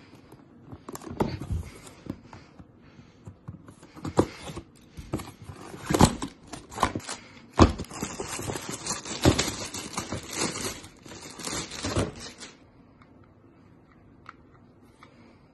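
Unboxing handling noise: a cardboard box opened and a pistol lifted out of its moulded pulp tray and plastic bag, with crinkling plastic, scraping cardboard and sharp knocks. It dies down about twelve seconds in.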